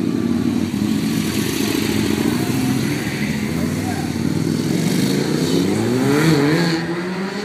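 Motorcycle engine pulling away and accelerating, its pitch climbing in a series of rising sweeps from about the middle on, then fading slightly near the end.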